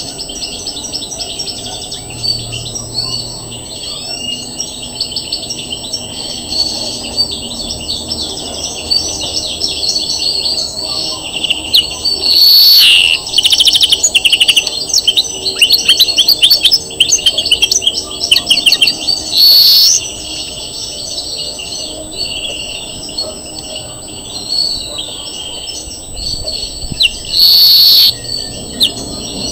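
European greenfinch singing: a long run of twittering and rapid trills, broken three times by loud, drawn-out notes that are the loudest moments, the last near the end.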